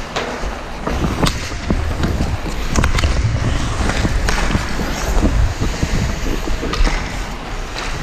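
Ice hockey play: skate blades scraping and carving on the ice, with repeated sharp clacks of sticks and puck over a constant low rumble.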